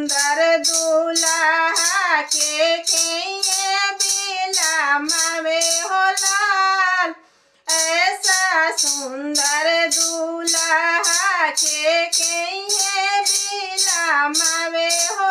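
A woman singing a folk wedding song (vivah geet) solo, her melody gliding and ornamented, over a steady jingling percussion beat of about three strokes a second. Voice and beat both break off briefly about seven seconds in, then carry on.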